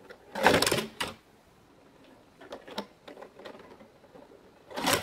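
Plastic toy pieces being handled: a loud scraping rattle about half a second in, light clicks and taps through the middle, and another scraping rattle near the end.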